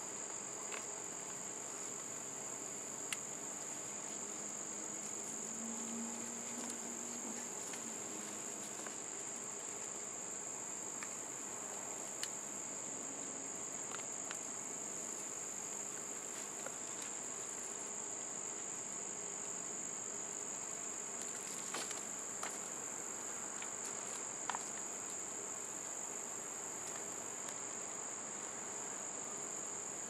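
Steady, high-pitched chirring of crickets, with a few faint ticks and rustles from gloved hands digging through potting soil in a plastic container.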